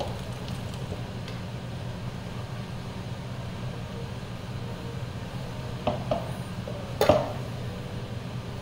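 Steady low hum of a running machine in the kitchen, with two short knocks of kitchenware on the counter about six and seven seconds in, the second one louder.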